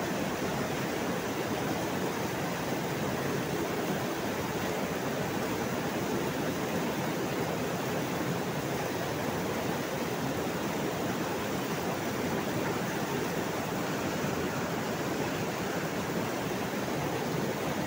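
Muddy backwash water from a rapid sand filter pouring in several streams over the wash-water troughs during backwashing, as the dirt is washed out of the sand bed. A steady, even rush of falling and splashing water.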